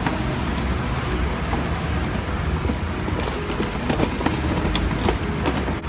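Road traffic rumbling steadily, with a few sharp knocks and clatters of plastic crates being handled about three to five seconds in.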